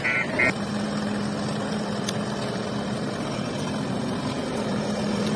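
JCB 3DX backhoe loader's diesel engine running steadily as the machine moves. A warning alarm beeps rapidly, about three beeps a second, and stops about half a second in.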